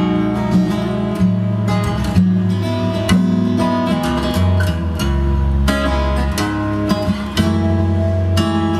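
Acoustic guitar music with plucked and strummed notes over a deep bass line, played back through B&W 686 S2 bookshelf speakers driven by a Muzishare X7 KT88 push-pull valve amplifier.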